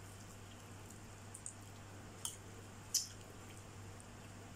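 Faint wet mouth smacks and clicks from eating and sucking on an orange wedge: three short ones about a second apart, the last the loudest, over a low steady hum.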